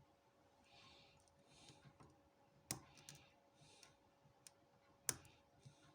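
Faint metallic clicks and ticks of a short hook working the pin stack of a 50mm brass Avocet five-pin padlock, with two sharper clicks, one near the middle and one about five seconds in, typical of pins setting at the shear line.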